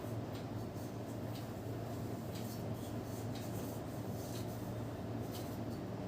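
Hands rubbing and working through hair on a scalp in a head massage, with scattered short crackles, over a steady low hum.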